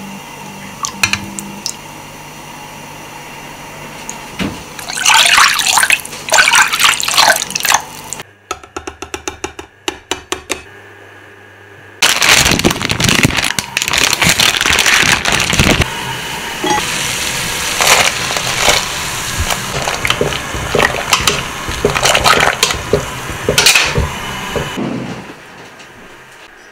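Water splashing and sloshing as ramen noodles are boiled and drained in a mesh strainer, in loud stretches, with a quieter passage of light clicks in between.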